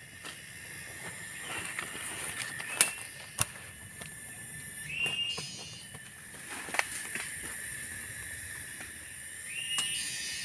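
Cicadas droning steadily and high-pitched in the forest, with a bird giving a short rising whistled call twice. Several sharp clicks and knocks from clearing and digging the ground, the loudest about three seconds in.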